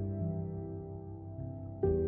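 Background music: gentle new-age instrumental with long held notes, and a new chord coming in near the end.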